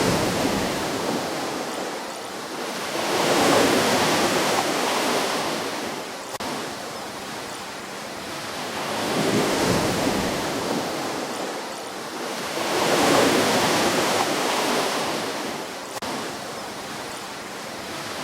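Ocean waves breaking and washing onto a shore, the surf swelling and fading again every four to six seconds.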